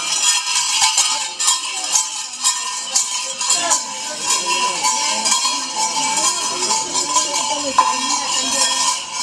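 Temple festival percussion: bell-metal hand cymbals clanging in a fast, unbroken rhythm with sharp drum strokes, the kind of ensemble that accompanies a Theyyam dancer.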